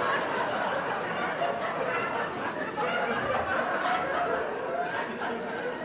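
Audience laughing, many voices together.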